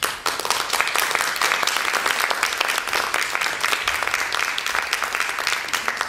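Audience applauding, breaking out all at once and holding steady.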